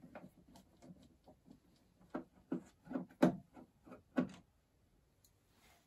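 Hand screwdriver working screws out of a treadmill's plastic console cover: a string of irregular small clicks and taps, stopping about four seconds in.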